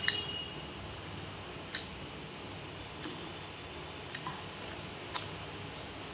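Close-up eating sounds: a handful of sharp, separate wet clicks and smacks from chewing, about one a second.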